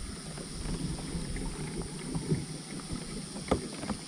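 Faint knocks and water sounds around a plastic fishing kayak, with a couple of short sharp clicks about two and a half and three and a half seconds in.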